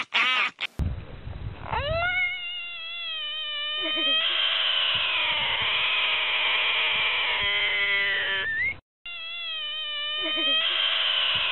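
A large frog held in a person's hands screams with its mouth wide open. It is a long, wavering, cat-like cry that rises at the start and is held for several seconds, the distress scream of a frog being handled. It breaks off briefly about nine seconds in and begins again.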